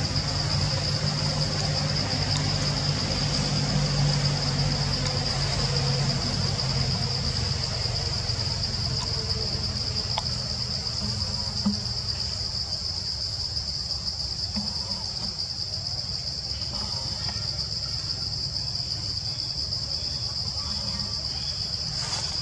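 Cicadas buzzing in one high, unbroken drone. Under it runs a low hum that fades after the first several seconds.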